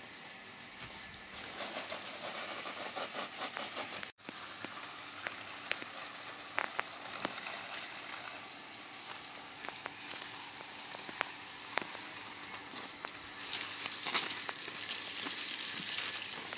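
Water spraying from a garden hose onto leaves and the ground: a steady hiss with scattered patter. It cuts out briefly about four seconds in and grows louder near the end.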